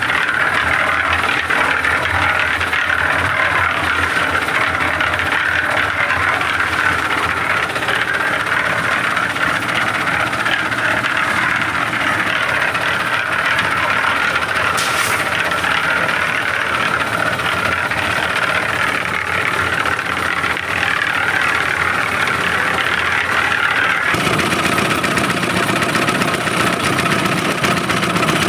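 Concrete mixer running: a small single-cylinder stationary diesel engine drives the rotating drum as it mixes concrete, in a steady unbroken run. Near the end the engine's low running sound becomes stronger.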